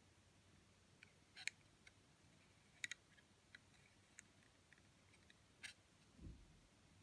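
Small metallic clicks from a handmade brass mechanical iris as its lever is worked and the metal blades open and close, about eight scattered clicks including a quick double click about three seconds in. A soft low thump follows near the end.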